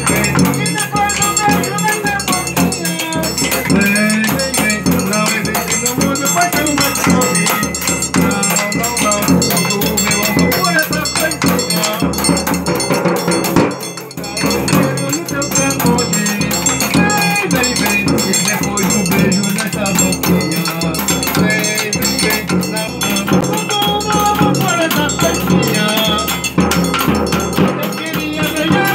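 Live pé-de-serra forró: men singing an old song over a snare drum beating a steady rhythm and a jingling tambourine.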